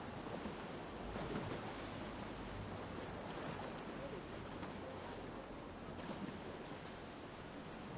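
Steady rush of white water in a shallow river rapid, heard from a kayak in the middle of it.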